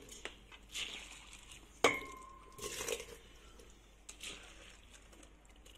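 Handfuls of wet, washed basmati rice dropped into a stainless-steel pot of hot water, with soft splashes and rustles. About two seconds in, a sharp metallic clink rings briefly as the steel vessels knock together.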